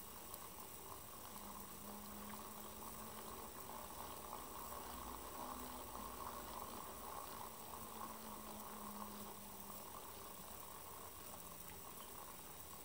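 NEMA17 stepper motor driving a 3D-printed 50:1 compound planetary gearbox: a faint whir from the printed gears, with a low motor hum that steps up and down in pitch several times as the joint turns, easing off near the end.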